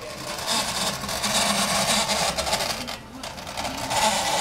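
Spring-driven clockwork motor of a 1949 Marx tin wind-up Dick Tracy squad car running with a steady mechanical whir, dipping briefly about three seconds in.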